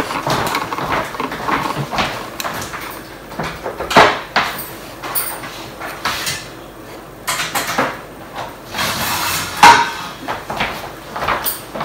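Plates and cutlery clinking and knocking as a table is set, in scattered short knocks, two of them louder than the rest.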